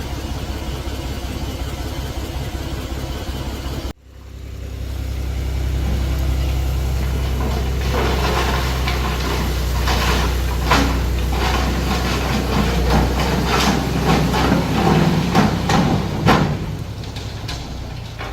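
Mahindra 275 DI tractor's diesel engine running steadily. About four seconds in the sound breaks off abruptly, then the engine comes back with a heavier low rumble. Through the second half there is a run of sharp knocks and rattles.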